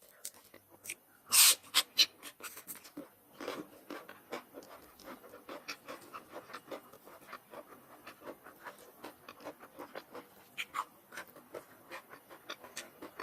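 Close-up eating sounds of soft rice noodles in coconut-milk curry: rapid wet chewing and lip-smacking clicks, with a louder slurp-like burst about a second and a half in.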